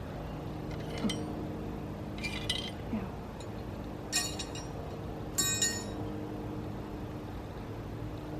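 Light metallic clinks from metal bird-feeder hardware being handled and hung: a pair of quick clinks, then two brighter ringing clinks a little over a second apart. A steady low hum runs underneath.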